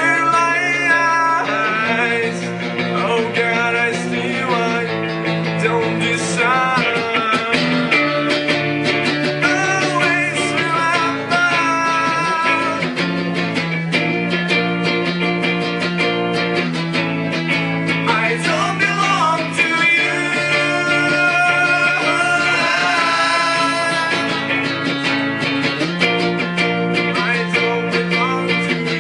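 Live band playing a song: a man singing into a microphone over strummed guitar.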